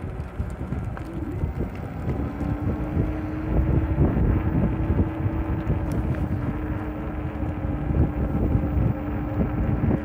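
Wind buffeting the microphone while riding an e-bike, a rough low rumble that grows louder after about two seconds, when a steady hum joins it.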